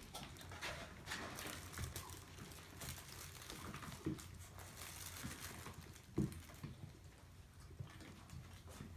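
Maltese puppies scrabbling and pattering about on a crinkly paper floor covering, with scattered rustling and scratching as one tugs at a plush toy. Two short low sounds stand out, about four and six seconds in.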